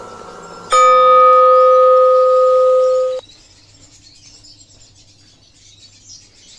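Bean-to-cup coffee machine giving one long, loud electronic beep on being switched on, a single steady tone held about two and a half seconds that starts just under a second in and cuts off abruptly.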